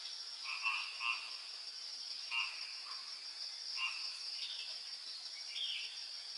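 A steady, high-pitched chorus of crickets or similar insects, with short chirping calls from another animal breaking in about six times.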